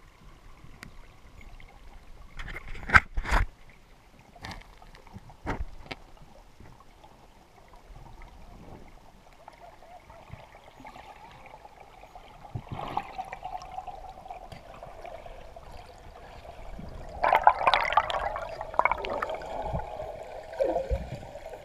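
Underwater sound of a diver in a rocky cave: a few sharp knocks early on, then gurgling air bubbles that grow loudest in the last few seconds.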